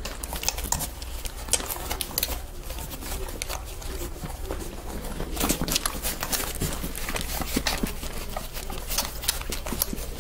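Five-week-old standard poodle puppies nursing from their mother: an irregular run of wet sucking and smacking clicks, thickest about halfway through.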